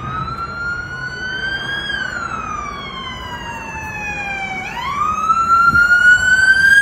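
Police car siren wailing: the pitch rises, falls slowly, then sweeps back up about two-thirds of the way through and holds high, growing louder near the end.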